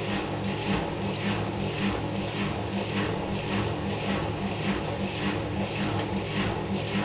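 Hoover Performa washing machine in its spin cycle: the motor hums steadily while the turning drum makes a regular whooshing pulse a few times a second.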